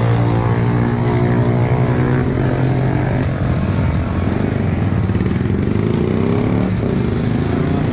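Motorcycle engine running hard, its pitch sinking over the first few seconds and then climbing again as it revs back up.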